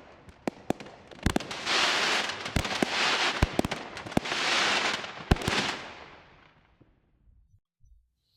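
Fireworks going off: a string of sharp bangs mixed with long crackling hiss, loudest in the middle, dying away over the last couple of seconds.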